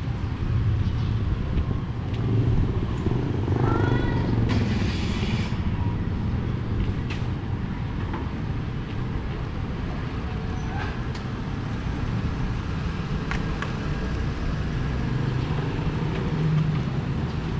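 Street traffic: a steady low rumble of passing vehicles, with a brief hiss about five seconds in and a few short clicks.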